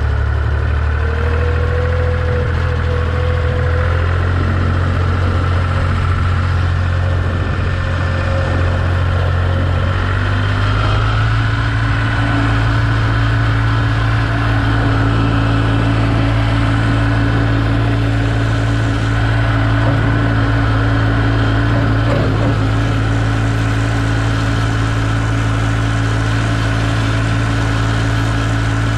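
Tractor engine running steadily under a constant throttle. About ten seconds in, the engine speed steps up a little and then holds.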